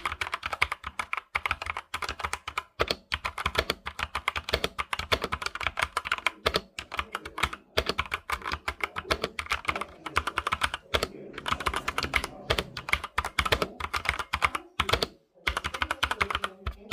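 Ajazz NK61 61-key mechanical keyboard being typed on quickly, a dense run of key clicks and clacks, with a couple of brief pauses past the middle.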